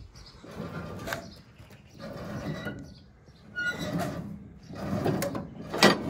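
Irregular metal clunks and scraping from handling the New Holland 377 baler's needle and knotter mechanism while string is threaded, ending in a sharp metallic knock.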